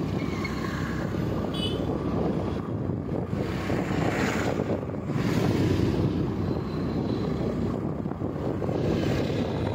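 Steady rumble of a moving vehicle's engine and road noise, with wind on the microphone.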